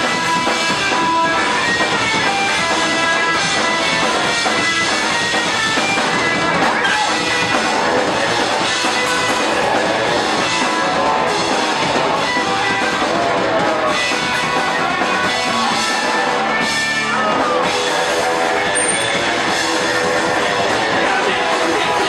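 Punk rock band playing live and loud: fast drums, electric bass and distorted guitar, with the singer shouting over them.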